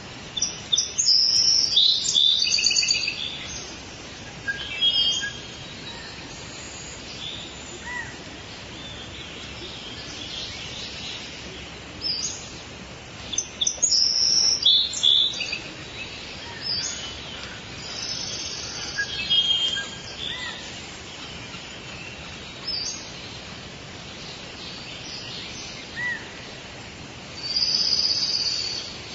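Tropical rainforest ambience: several birds calling and chirping in scattered bursts, busiest near the start, around the middle and near the end, over a steady background hiss.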